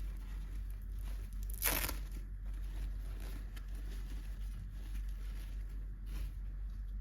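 Toy packaging being torn open: one short, sharp tear about a second and a half in, with fainter rustling and crinkling of the wrapper around it, over a steady low hum.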